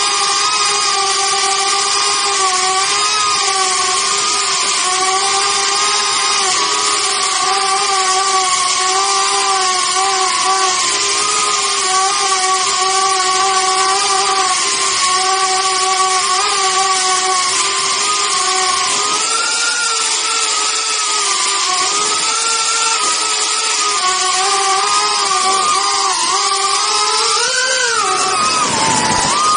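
Small ducted FPV quadcopter's electric motors and propellers whining steadily, the pitch wavering up and down with the throttle. Near the end the pitch climbs briefly and then falls sharply.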